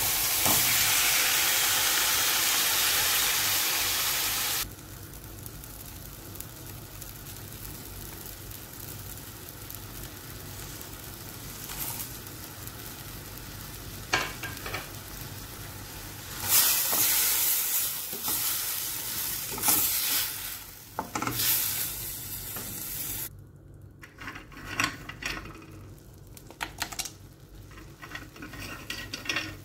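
Tomato pieces frying in hot oil in a steel pan: a loud sizzle for about the first four and a half seconds, then a quieter steady sizzle with louder spells. From the middle on, it is broken by the sharp scrapes and clinks of a spoon stirring in the pan.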